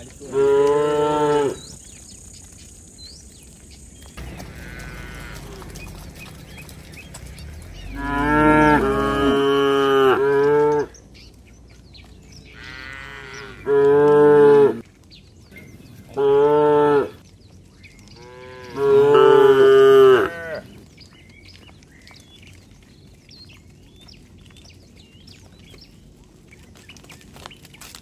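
Cattle mooing: five long moos spread through the first two-thirds, two of them with a second cow calling over the first.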